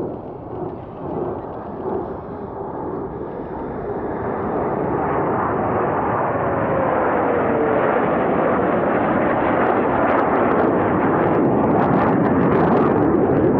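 Jet noise from the Blue Angels' diamond of F/A-18 Super Hornets passing in a turn. It builds over the first few seconds to a loud, steady rush, with a faint falling whine around the middle.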